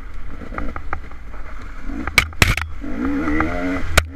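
Off-road dirt bike engine running and revving over rough trail, with a constant low rumble of wind on the microphone. Several sharp knocks and clatter come from the bike hitting bumps and branches striking past; the loudest are about two and two and a half seconds in, and one comes near the end as brush sweeps across the camera.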